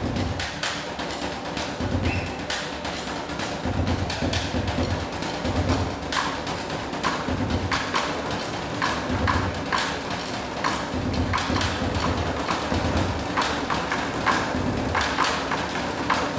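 Middle-school percussion ensemble playing: many quick, sharp strikes over a low drum hit that recurs about once a second.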